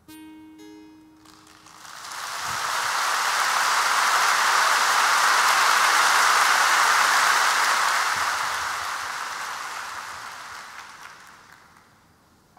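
A guitar chord rings out briefly, then a large concert audience applauds. The applause swells about two seconds in and dies away near the end.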